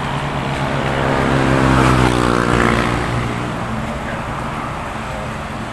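A motor vehicle passing close by on the road, its engine note swelling to a peak about two seconds in and falling in pitch as it goes past, over steady traffic noise.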